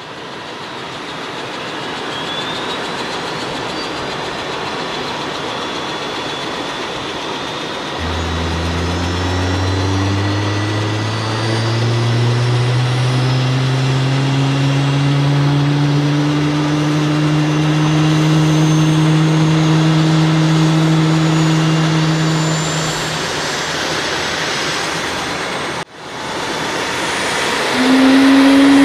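Eachine E129 micro RC helicopter's electric motor whining and main rotor humming as it spools up on the ground, the pitch climbing slowly. The sound cuts off abruptly near the end and comes back as a steady, higher hum with the helicopter in flight.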